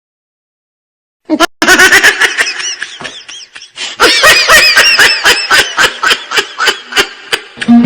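Silence for about a second, then high-pitched laughter in a long run of short bursts that come quicker, about five a second, in the second half.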